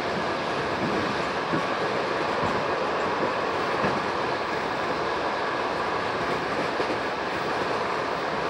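Passenger railway coach running along the track: a steady rumble of wheels on rail, with a few faint clicks from the rail joints.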